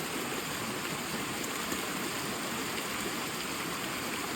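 Steady rush of fast-flowing wadi water, a stream or waterfall running strongly with monsoon flow.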